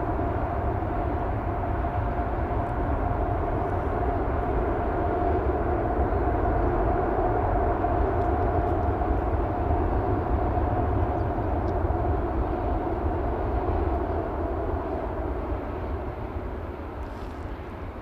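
Airbus A380's four Engine Alliance GP7200 turbofans running as the airliner rolls out after landing: a steady jet rumble with a whine, fading over the last few seconds as the aircraft slows.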